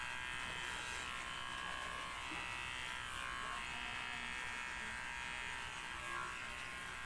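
Handheld electric hair clipper buzzing steadily as it is run over a closely shaved scalp.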